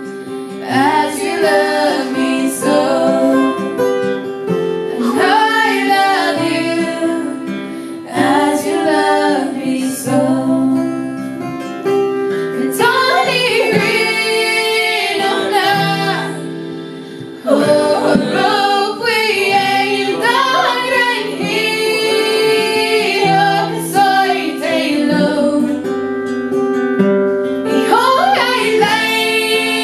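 Women's voices singing a gospel worship song together, accompanied by acoustic guitar.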